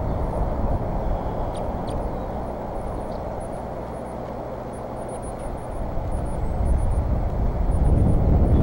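Outdoor ambience from a nest-cam microphone: a steady low rumbling noise that swells near the end, with faint high peeps repeating through it.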